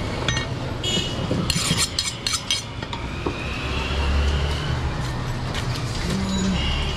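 Butcher's knife and cleaver cutting and chopping goat meat on a wooden chopping block: a run of sharp knocks and metallic clinks in the first two and a half seconds. After that a low steady rumble sits in the background.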